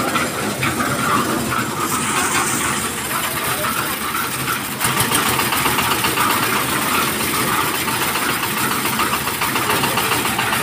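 Kirloskar 15 HP diesel engine running steadily under power, turning a belt-driven machine; it gets slightly louder about five seconds in.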